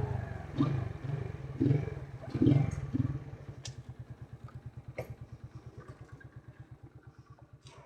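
Shineray Jet 50cc scooter engine on its original exhaust, settling from a few short puffs of throttle into a steady idle putter that slowly fades. A few sharp clicks sound over it.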